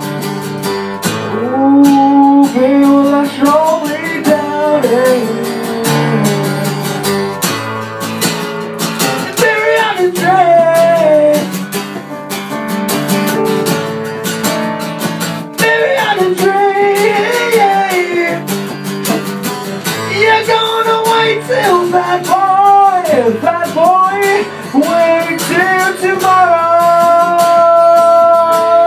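Live song: strummed acoustic guitar under a man's singing voice, the melody ending on a long held note near the end.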